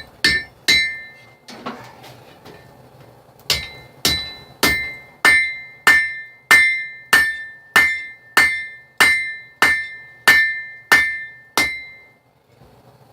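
Blacksmith's hammer striking hot steel on an anvil while drawing out a knife tang, each blow ringing. Three quick blows, a pause of about three seconds, then a steady run of about fourteen ringing blows, a little under two a second.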